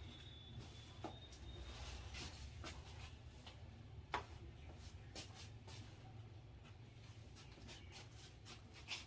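Hands working a head massage: faint rubbing of fingers through oiled hair and over skin, with a few light sharp clicks or taps scattered through, over a steady low hum.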